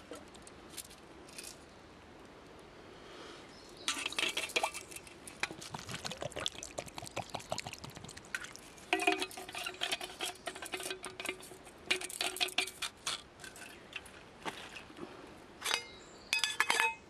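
Camp cookware and utensils being handled: a few light clinks, then from about four seconds in a run of clattering and clinking, some strikes ringing briefly like metal.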